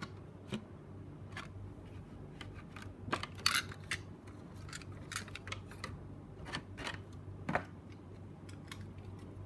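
Irregular light clicks and taps of small hard plastic parts being handled, with a denser cluster about three and a half seconds in and a sharper tap about seven and a half seconds in, over a steady low hum.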